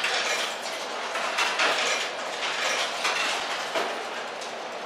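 Quarters being fed quickly into soda vending machines, a dense, irregular clatter of coins clicking and rattling through the coin mechanisms.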